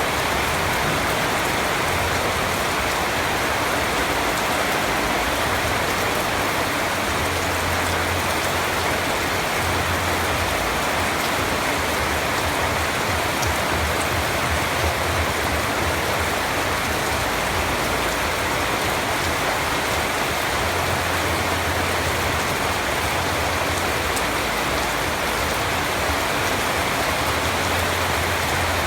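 Steady rain falling and pattering on surfaces, an even continuous hiss with no break.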